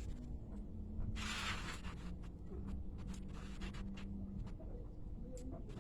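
Faint handling of eggs from an incubator tray: scattered light clicks and a brief scrape about a second in, over a low steady hum.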